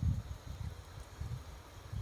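Wind buffeting the microphone: an uneven low rumble that swells and drops in gusts, strongest right at the start.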